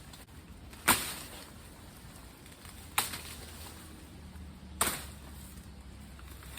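Three sharp chopping strikes of a hand tool, about two seconds apart.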